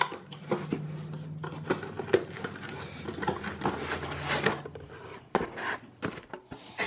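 Cardboard parcel boxes being opened by hand: tape and cardboard tearing, packing material crinkling, and irregular clicks and scrapes of the box being handled.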